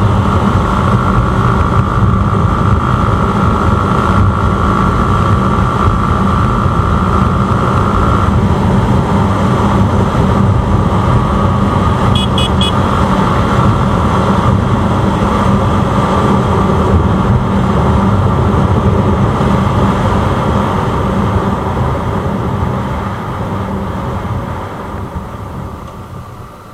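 Noise of a vehicle on the move on a road: a steady rumble of wind and tyres with the engine running underneath. A brief high beeping comes about twelve seconds in, and the noise dies down over the last few seconds.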